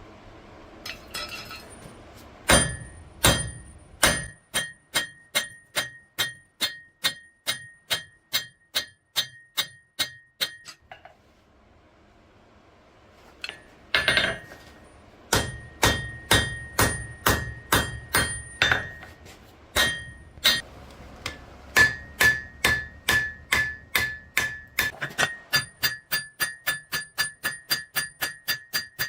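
Hand hammer striking hot steel on an anvil while forging the legs of the plate's base. The blows come in three runs, about two a second and quickening toward the end, each with a bright, steady anvil ring.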